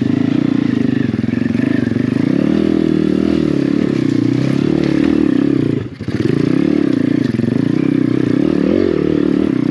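Apollo RFZ 125cc pit bike's single-cylinder four-stroke engine pulling up a steep rocky climb, the revs rising and falling with the throttle. About six seconds in it dips sharply for a moment, then picks up again.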